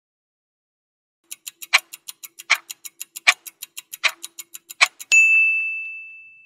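Countdown-timer sound effect: a clock ticking fast, about six ticks a second with a louder tick every three-quarters of a second, starting a little over a second in. About five seconds in, one bell ding rings out and fades, signalling that time is up.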